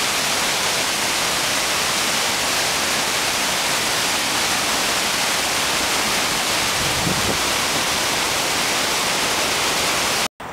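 River rapids and a small waterfall: white water rushing steadily, cutting off suddenly near the end.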